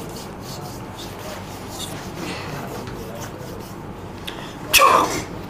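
Faint rustling of cloth and hands moving, then near the end one short, loud, sharp burst of a person's breath and voice.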